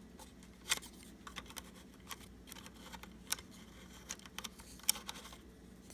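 Scattered light clicks and taps, irregularly spaced, from hands handling the plastic parts of a small sewing machine. A faint steady low hum lies underneath.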